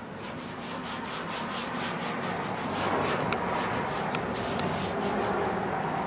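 A paintbrush's bristles rubbing and scraping across a stretched canvas in a steady rasping stroke, with a few light clicks.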